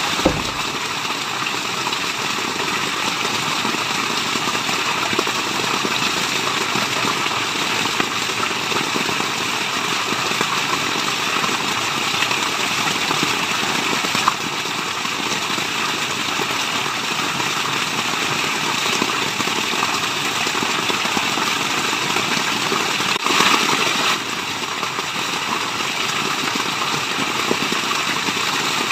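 Waterfall: steady rushing, splashing water, with a brief louder surge about 23 seconds in.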